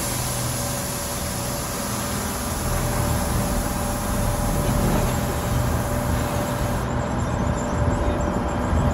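Passenger coach running behind a small diesel locomotive: a steady low engine drone under the continuous rumble and rush of the moving train.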